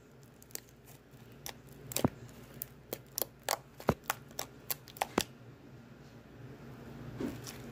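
Blue slime being stretched and poked by hand, making a quick run of sharp little clicks and pops as the air pockets in it burst, about a dozen over five seconds. It goes quieter near the end.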